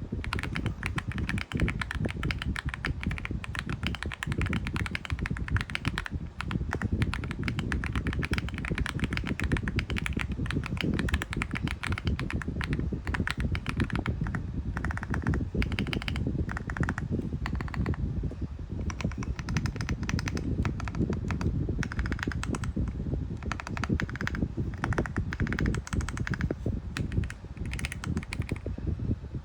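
Aula F99 mechanical keyboard being typed on quickly and without pause: a dense, fast stream of keystroke clacks.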